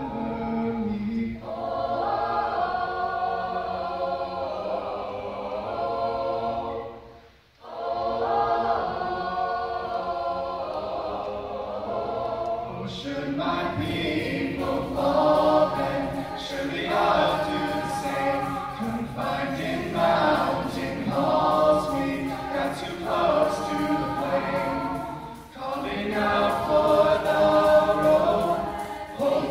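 Mixed-voice choir singing sustained chords, stopping briefly about seven seconds in. About thirteen seconds in, a fuller, louder passage begins with a steady beat under the voices.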